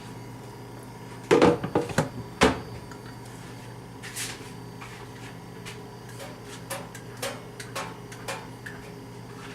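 Plastic parts of a Black & Decker thermal carafe coffee maker being handled and fitted together. There are a few loud knocks between one and two and a half seconds in, a short scrape, then several light clicks.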